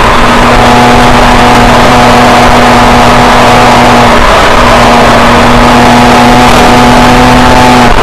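The BMW 335i's N54 twin-turbo straight-six runs hard at a steady high speed under heavy wind and road noise, heard from inside the cabin. Its note holds steady, with a brief dip about halfway through.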